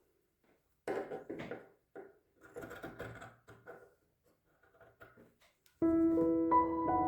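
A few irregular rustles and light knocks of handling, then soft piano background music begins about a second before the end.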